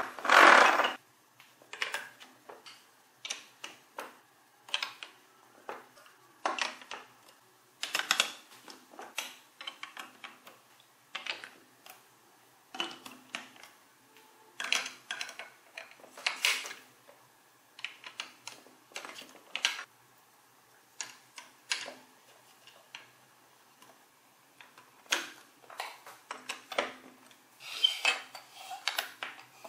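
Large plastic building blocks and gear pieces clicking and clattering as they are handled, fitted together and set down. The sound comes as irregular taps and knocks with short gaps between them.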